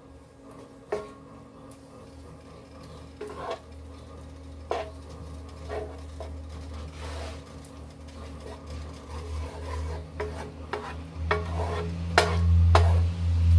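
A spatula stirring and scraping a mix of sautéed onions, peppers, cream cheese and beef broth in a nonstick electric skillet, with a light sizzle. The scrapes come more often toward the end, when a low hum also grows loud.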